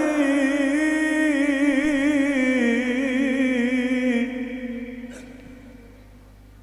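A man's voice reciting the Quran in melodic tarannum style through a microphone, holding one long wavering note on the last syllable of 'alayh'. The note fades out between about four and six seconds in, leaving a faint steady hum.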